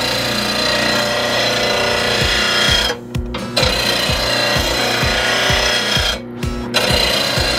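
RBG 712 bench blade grinder's wheel grinding the edge of a steel lawn mower blade: a harsh grinding over the motor's steady hum. It breaks off twice, about 3 and 6 seconds in, as the blade is lifted off the wheel between passes.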